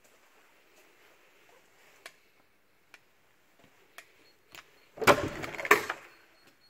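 A wooden interior door being opened: a few faint clicks, then about five seconds in a loud clatter with two sharp knocks about half a second apart as the latch and door move.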